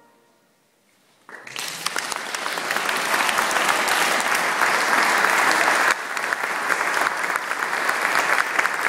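Audience applause breaking out after about a second of near silence, then clapping steadily.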